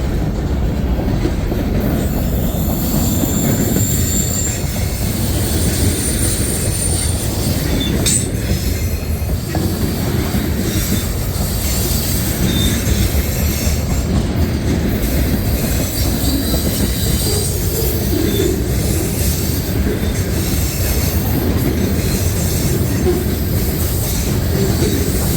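Freight cars of a long mixed freight train rolling past at close range: a steady heavy rumble of steel wheels on rail, with faint, short high-pitched wheel squeals now and then.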